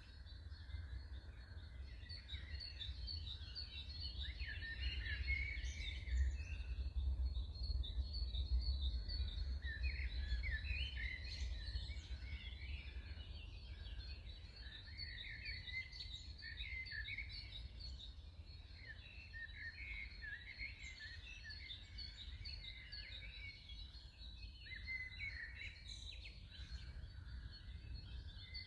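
Many small birds chirping and singing at once in an early-morning dawn chorus, with short overlapping calls throughout. A low rumble underlies them and is strongest about a quarter of the way in.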